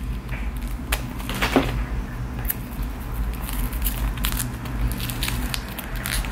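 Scattered small clicks and taps from hands pulling apart and peeling a jackfruit, over a steady low hum.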